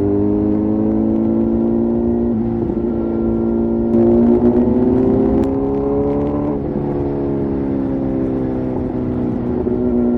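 Kawasaki ZX-10R inline-four motorcycle engine and exhaust pulling under load, the pitch climbing steadily for about six seconds, then dropping away as the throttle comes off and settling to a steady note.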